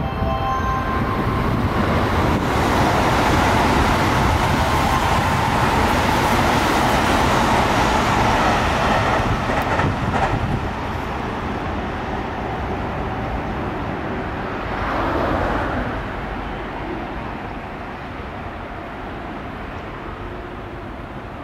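Toei Asakusa Line 5500 series electric train passing through the station at high speed: loud rushing and rumbling of wheels on rail for about eight seconds, then dropping off sharply as it clears. Quieter train running noise follows. A short high tone sounds right at the start.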